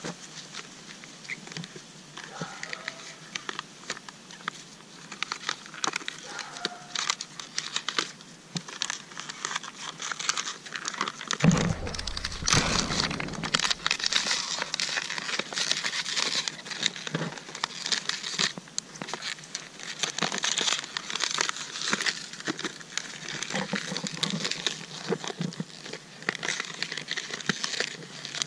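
Plastic water bottle crinkling and crackling in irregular bursts as several puppies chew and tug at it, with a loud low bump about eleven seconds in.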